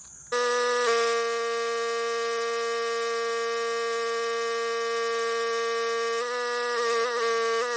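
Northstar 4000 PSI pressure washer running, its high-pressure jet spraying as it cuts into a poplar trunk: a steady, high buzzing tone over a hiss of water that starts abruptly and wavers briefly near the end.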